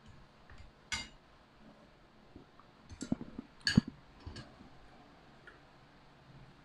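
Metal spoon and fork clinking against a ceramic plate: a few sharp, ringing clinks, the loudest about four seconds in.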